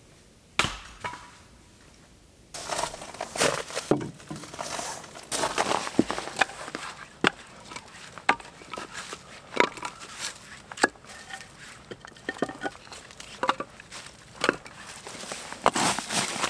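One sharp knock about half a second in, then from about two and a half seconds a run of irregular wooden knocks and crunching: split firewood logs being handled and stacked into a log store, among snow and dry leaves.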